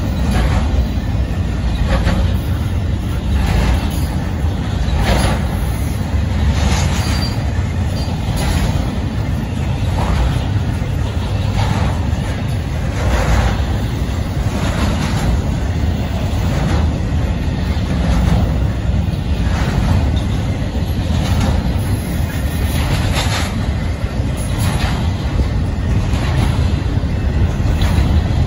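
Union Pacific double-stack intermodal freight train rolling past close by: a steady deep rumble of the cars, with a wheel clack about once a second.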